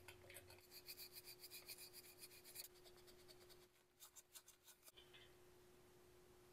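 Faint, rapid scraping as a metal pick cleans dirt and rust out of the keyway on a hydraulic drive motor's tapered steel shaft, in quick repeated strokes. A few more strokes follow as a cloth wipes the shaft, then it goes quiet.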